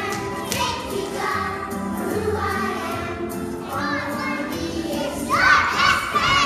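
A group of young children singing a song together. Near the end one high voice rises and falls in pitch several times, louder than the rest.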